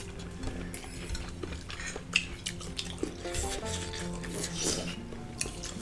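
Light background music with a gentle melody, under forks and spoons clinking on plates and serving pots; one sharper clink about two seconds in.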